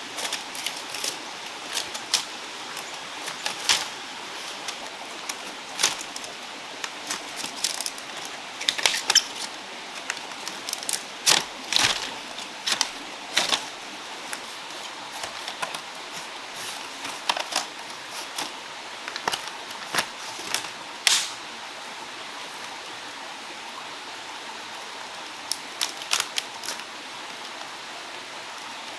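Split green bamboo strips clicking and cracking as they are split, peeled and handled, in irregular sharp clicks over the steady rush of a stream. The clicks pause for a few seconds late on.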